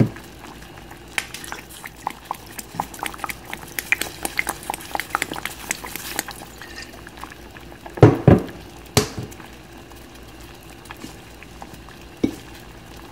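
Tom yum broth with squid at a rolling boil in a stainless steel pot, a steady run of small bubbling pops. Louder knocks stand out about eight seconds in and again at nine seconds, with another near the end.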